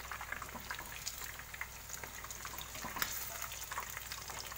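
Chicken pieces deep-frying in hot oil in a kadhai: a steady bubbling sizzle dotted with small crackles, with a slotted spoon stirring and turning the pieces in the oil.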